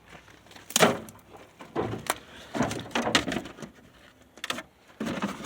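An old pickup truck's door and interior door panel being handled: a sharp clunk about a second in, then several shorter clunks, rattles and scrapes.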